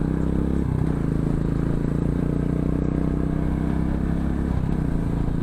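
Motorcycle engine running steadily while riding, with a steady even engine note. The note briefly breaks about half a second in and again near the end.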